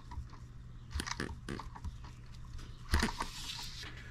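Handling noises on a workbench: a few light clicks and taps as hands move a small brass model engine and tools, with a louder knock about three seconds in, over a faint steady low hum.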